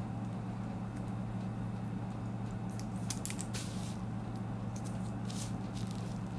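Steady low hum, with a few short crackles of paper and plastic as the backing is peeled off a shipping label and pressed onto a plastic mailer bag, about halfway through and again near the end.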